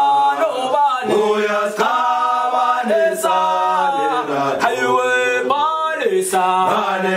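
Background music: a group of voices singing a South African gwijo chant a cappella, in harmony over a low held note.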